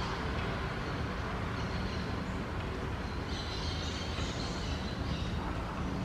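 Steady outdoor background noise: a continuous low rumble with a fainter high-pitched hiss or chirping over it that grows a little louder about halfway through.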